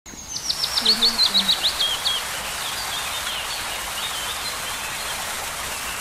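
Waterfall pouring steadily into a pool, with a bird singing a fast run of sharp, falling notes over the first two seconds, then softer scattered chirps. A brief low call sounds under the song about a second in.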